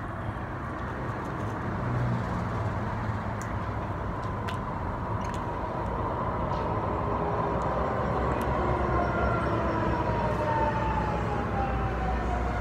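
An emergency-vehicle siren, one tone that falls slowly in pitch over several seconds, over a steady low traffic rumble.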